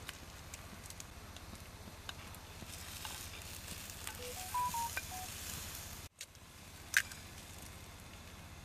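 Eggs frying in a steel pan on a gas camp stove: a steady hiss with light sizzling and scattered crackles. A few short whistled notes sound around the middle, and near the end there is one sharp tap as an egg is cracked open.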